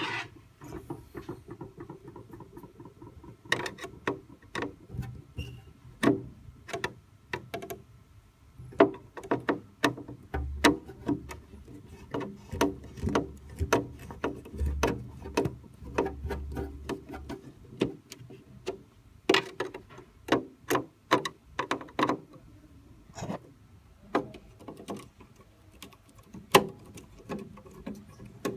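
Screwdriver removing the corner screws of a TV's LED board: irregular clicks and taps of the tool and small metal parts, with a low hum for several seconds in the middle.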